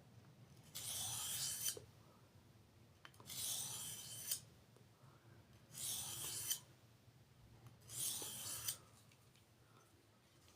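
A steel blade drawn across an oiled sharpening stone, four separate hissing strokes each lasting under a second, with short pauses between.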